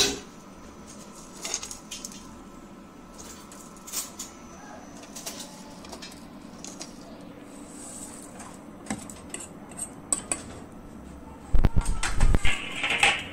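A metal fork clinking and scraping on a plate and a steel cooking pot while dry instant noodles are broken in and their crumbs scraped into the pot: scattered separate clinks, then a louder cluster of knocks near the end.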